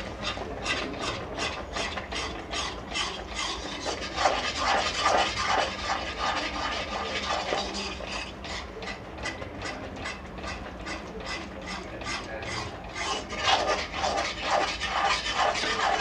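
Metal spatula scraping rhythmically around the inside of a metal kadhai, about three strokes a second, as thickening sugar syrup is stirred continuously while it cools so that it does not stick to the pan.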